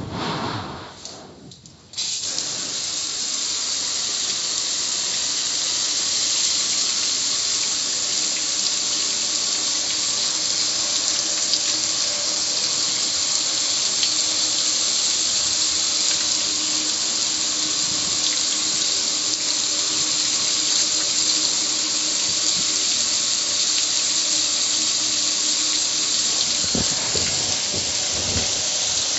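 Garden hose spraying water steadily onto a gas grill, the water splashing and running off its lid and control panel. The spray starts suddenly about two seconds in.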